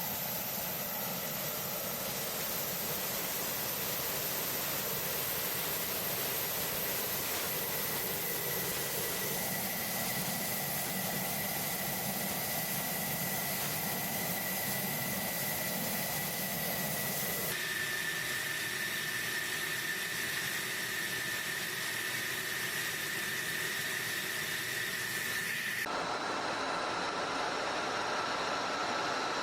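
Jet engine running on the ground: a steady hiss with a high whine. The sound changes abruptly about seventeen seconds in and again near the end.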